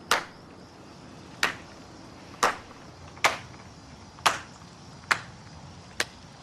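A series of sharp clicks, seven of them at about one a second, each dying away quickly.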